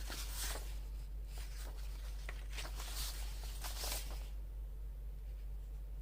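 Paper rustling and scratching as craft papers are handled, a string of short scratchy sounds through the first four seconds, then quieter, over a steady low hum.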